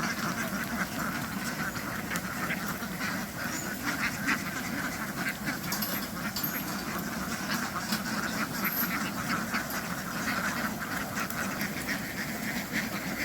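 A flock of domestic ducks quacking continuously, many calls overlapping without a break.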